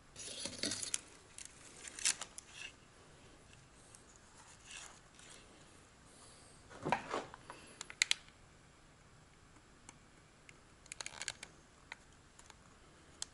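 Faint scattered rustles and sharp clicks of hand work: thin balance-lead wires being handled and pressed against a lithium battery module's cell terminals for soldering. The loudest clicks come about seven to eight seconds in.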